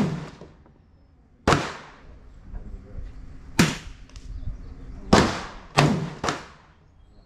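Five gunshots: two single shots about two seconds apart, then three in quick succession about half a second apart.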